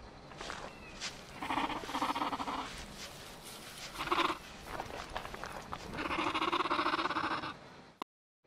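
Sound-designed dinosaur calls for small theropods: two calls about a second and a half in, a short one around four seconds, and a longer fluttering call that cuts off suddenly near the end.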